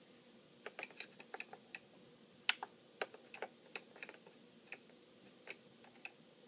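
Irregular sharp clicks of an Akai MPC5000's buttons and data wheel being worked, sometimes several in quick succession, as the sample start point is nudged in the edit screen.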